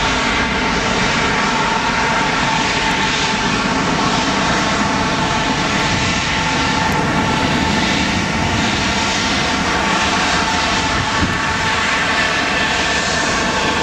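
Airbus A320 jet engines at takeoff power as the airliner climbs away after lift-off. The sound is loud and steady: a rushing noise with a buzzing layer of many steady tones.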